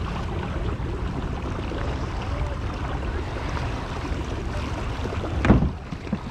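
Pedal kayak moving through calm water: a steady wash of water along the hull with wind on the microphone, and one loud thump about five and a half seconds in.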